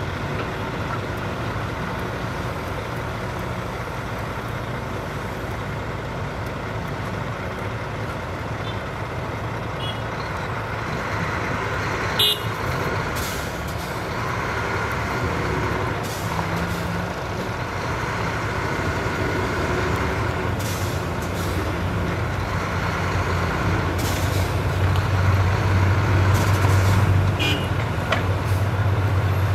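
Heavy diesel engine of a dump truck or excavator running steadily, getting louder in the last few seconds. There is a sharp clank about 12 seconds in and several short hisses in the second half.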